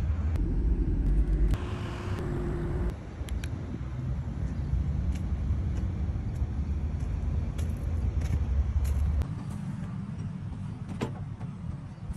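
2015 BMW M4 convertible's twin-turbo straight-six idling with a low rumble that drops away about nine seconds in; a sharp click near the end.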